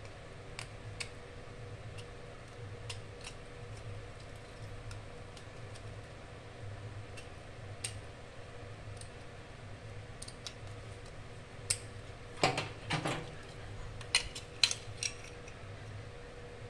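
Hand shears snipping the edge of an aluminium dental stock tray, trimming it down: scattered sharp metallic clicks, with a cluster of louder clicks and clatter about twelve to fifteen seconds in.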